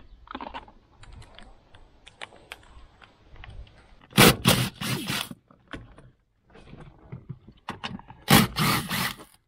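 A DeWalt 20V MAX cordless driver spins out the 14 mm seat-mounting bolts in two bursts of about a second each, about four and eight seconds in. Before that, metal sockets clink and scrape in a plastic socket case as one is picked out.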